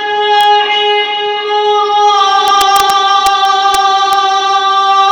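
A Quran reciter's voice holding one long melodic note in chanted recitation, the pitch shifting slightly about two seconds in. Several sharp clicks sound over the held note.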